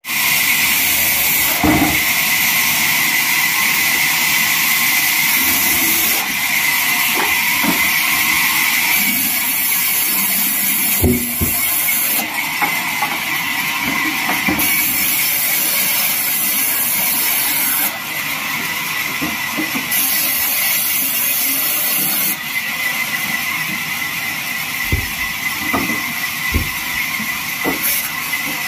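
Large vertical band saw running and ripping a log into slabs: a steady high hiss of the blade through the wood that shifts in strength every few seconds, with a few dull knocks.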